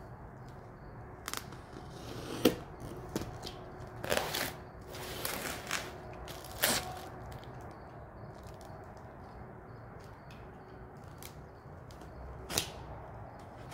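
A package being handled and opened by hand: scattered taps, clicks and rustling of the packaging, with a few sharper knocks.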